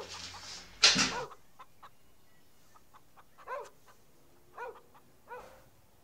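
A few short animal calls, each a brief pitched cry, the loudest about a second in, with others spaced a second or so apart.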